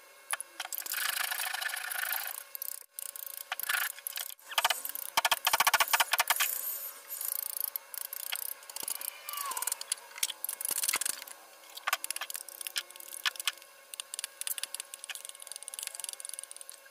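Hand carving gouge cutting and scraping into wood in strokes of a second or two each, with sharp taps and chips snapping off between strokes.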